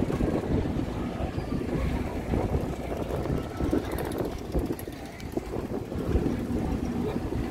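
Low, rough rumble of a Tornado spinning fair ride running, with wind buffeting the microphone as the car swings round.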